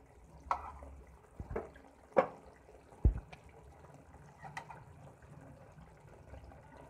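Sauce simmering in a wok of chicken and vegetables: about five scattered wet pops and gurgles over a low steady hum.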